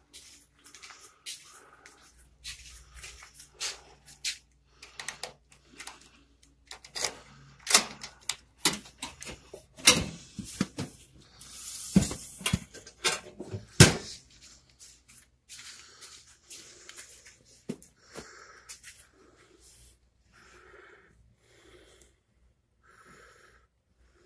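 Sharp clicks and knocks of a metal post office box being handled and opened, then a paper-and-plastic mailer rustling as it is slid out of the box, about halfway through. Fainter handling sounds follow.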